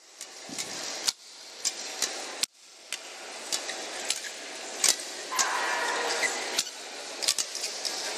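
Badminton rackets striking a shuttlecock in a pre-match warm-up: sharp pops at irregular intervals over the steady murmur of the arena.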